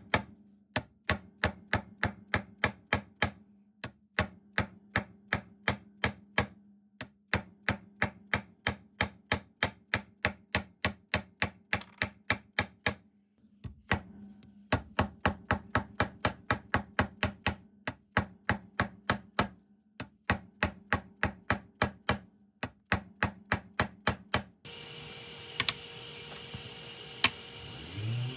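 Brass-faced fret hammer tapping stainless steel frets into an ebony fretboard: quick runs of sharp taps, about four a second, with brief pauses between runs. Near the end the tapping gives way to a steady low hiss with a few single clicks.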